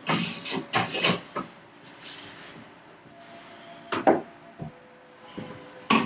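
Hand plane strokes on curly maple held in a bench vise: a few quick rasping strokes in the first second and a half, then a sharp knock about four seconds in as a plane is picked up off the wooden bench, and another stroke at the very end.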